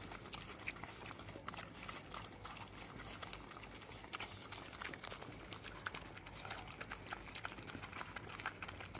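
Several dogs eating rice off paper on the ground: faint chewing and licking, many small irregular clicks.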